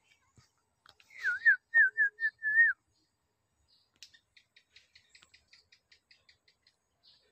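A person whistling a short phrase of wavering, looping notes, loud, lasting about a second and a half. About four seconds in, a faint run of quick high chirps starts, about four a second.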